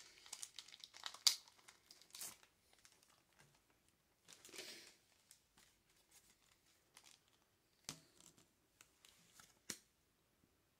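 Foil wrapper of a Pokémon Rebel Clash booster pack torn open and crinkling, with sharp crackles in the first couple of seconds and a softer rustle a few seconds later. Near the end, a few light clicks of the trading cards being handled.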